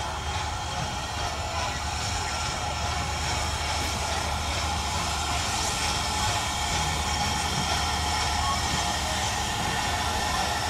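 Ivatt Class 2MT steam locomotive No. 46447 and its coaches running slowly into the station, a steady rail sound with some high held tones, growing slightly louder as the train draws nearer.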